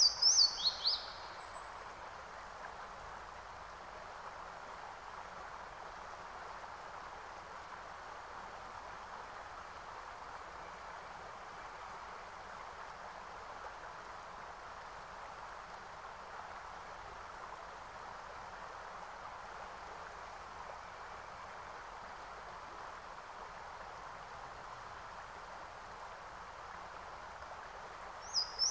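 Steady rushing noise like a flowing stream, with a bird's short run of falling chirps about a second in and again right at the end.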